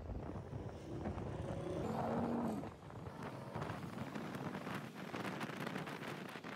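Motorcycle riding in traffic: wind rushing over the microphone along with engine and road noise. A short louder patch with a pitched tone comes about two seconds in.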